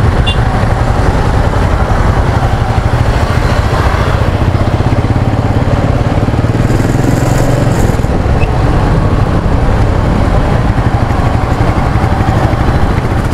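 Motorcycle engine running steadily while riding, a constant low drone.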